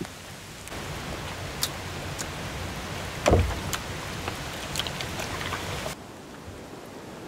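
Rain falling steadily, with scattered sharp drip ticks and one louder knock a little after three seconds in. The rain noise falls away sharply near the end.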